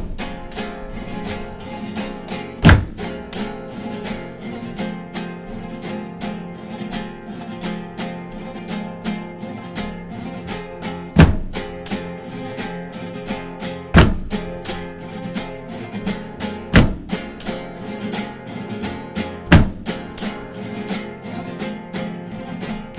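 Instrumental passage of an acoustic folk band: nylon-string acoustic guitars strumming over sustained cello and double bass. Five heavy drum hits, spaced two to three seconds apart from about the middle on, are the loudest sounds.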